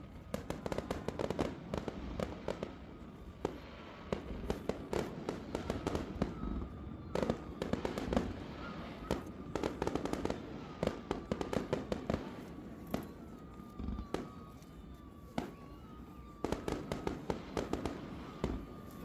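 Fireworks display: a steady run of sharp bangs and crackling reports, bunching into rapid volleys at the start, about seven seconds in and again near the end.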